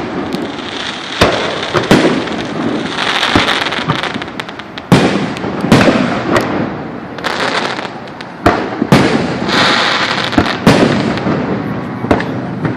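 Aerial fireworks shells bursting: about a dozen sharp bangs at uneven intervals, some in quick pairs, with a continuous rumble and hiss between them.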